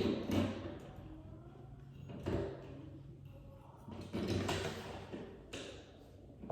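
Several knocks and scrapes of hardware being handled and fitted, about four separate bursts, over a faint steady hum.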